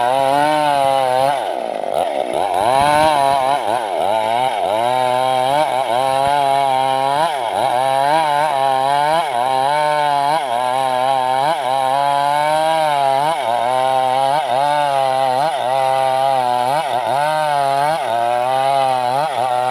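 Stihl MS 382 two-stroke chainsaw running under load as it rips a log lengthwise. The engine pitch wavers up and down as the chain bites, sagging deeply about two seconds in, then picking back up.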